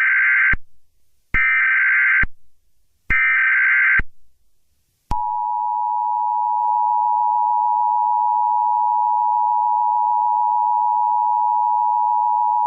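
Emergency Alert System tones: three harsh, buzzy bursts of SAME header data, each about a second long, with the first already under way. About five seconds in, the steady two-tone attention signal begins and holds unbroken.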